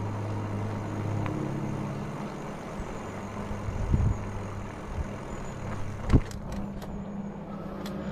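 Engwe Engine Pro e-bike riding along a towpath: a steady low motor hum over tyre and road noise. Two thumps come about four and six seconds in, then a few sharp clicks. Near the end a rising whine sets in as the motor speeds up again.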